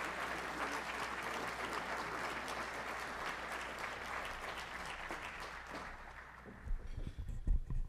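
Audience applauding, the clapping dying away over the last couple of seconds, with a few low thumps near the end.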